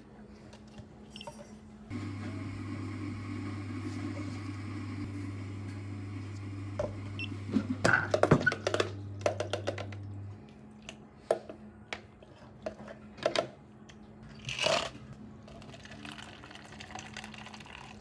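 Bubble tea prep sounds at a café counter. A low, steady machine hum runs for about eight seconds and stops about ten seconds in. Over it come clicks and clatter of plastic cups, a scoop and tapioca pearls, with a short rush of noise later.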